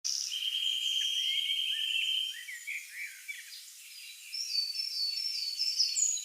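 Wildlife calls with nothing low in them: a steady high trill for about two seconds, then scattered chirps and a run of repeated high notes near the end.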